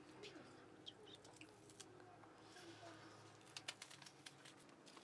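Near silence: faint room tone with a few soft scattered clicks and some brief faint high chirps.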